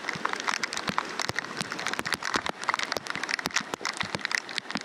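Torrential rain: a dense patter of many sharp drop hits close by over a steady hiss, with floodwater rushing past beneath it.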